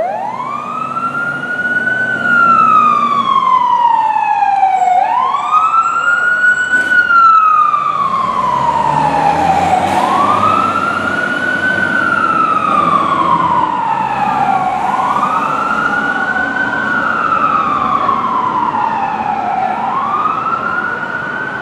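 Fire truck siren in a wail that winds up quickly and falls off slowly, starting over about every five seconds, with the truck's low engine rumble beneath.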